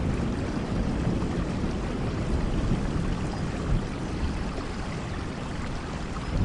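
Steady rainfall, a dense even hiss of falling rain with a heavy low rumble underneath, fading slightly and swelling again near the end.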